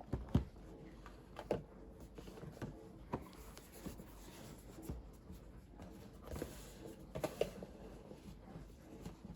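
Faint handling of packaging: scattered soft clicks, taps and rubbing, with a short cluster of taps about seven seconds in.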